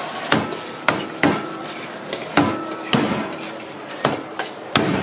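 A hammer striking a plastic bag laid on a thick round wooden chopping block: about eight sharp, separate knocks at an uneven pace, pounding whatever is inside the bag.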